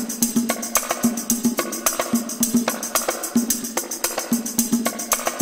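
Background music with a fast, steady percussive beat.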